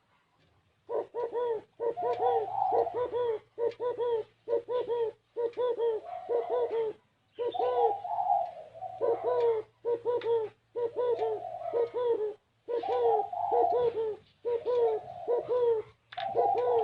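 Spotted dove cooing: quick runs of short, repeated coos, starting about a second in and going on to the end. This is the 'gáy gù kích bổi' style of call that keepers value for stirring up decoy doves.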